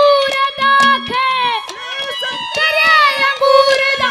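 A boy singing a Haryanvi ragni through a PA microphone, holding long notes that bend in pitch, with hand-drum strokes behind him.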